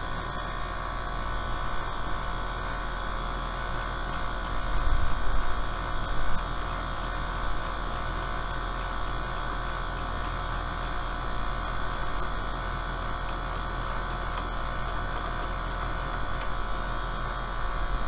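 Ratcheting service wrench clicking steadily, about three to four clicks a second, as the liquid line service valve on an air-conditioning condensing unit is turned shut. Under it runs the steady hum of the running 5-ton three-phase condenser, whose compressor has bad valves and is making excessive noise.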